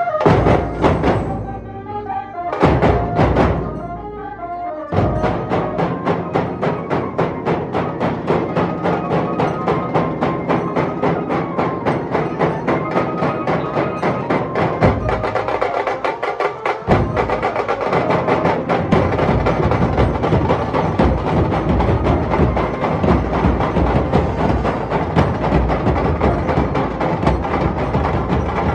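Dhol-tasha drum ensemble playing: a few heavy separate strikes at first, then from about five seconds in a fast, dense, driving beat that keeps up, the deep drums briefly dropping out around the middle.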